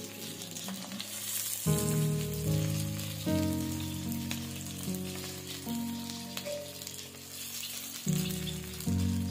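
Sliced onions sizzling as they fry in hot oil in a wok, a steady hiss. Background music plays over it, changing notes every second or two.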